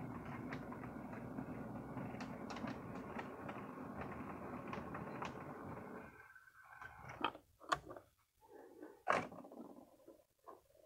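HO scale model locomotive running along the track with a string of freight cars: a faint steady motor-and-wheel running noise with scattered light clicks. It stops about six seconds in, and a few sharp knocks and clicks follow, the loudest near the end.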